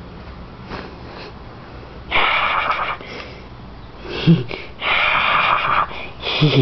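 Pet ferret hissing during rough play with a hand: three short breathy hisses, each under a second.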